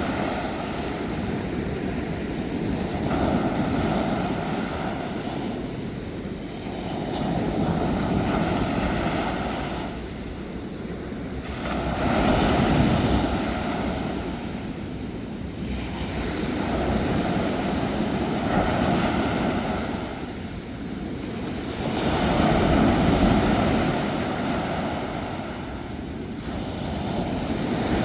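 Sea surf washing onto a shore, each wave swelling and falling back about every four to five seconds.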